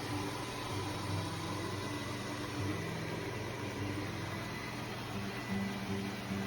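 Robot vacuum running: a steady motor hum with shifting low tones.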